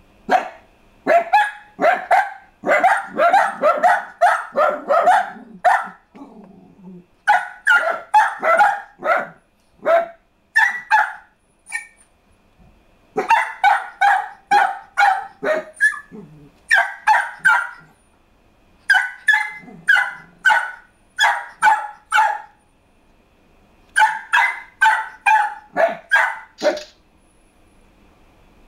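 Dog barking in quick runs of sharp barks, several runs with short pauses between them. The dog is barking in reaction to the sound of fireworks.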